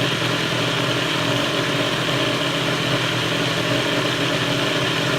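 Countertop blender motor running steadily at full speed with a constant hum and a hiss, blending raw sunflower seeds, lemon juice, water and cilantro into a creamy dip. It comes on suddenly.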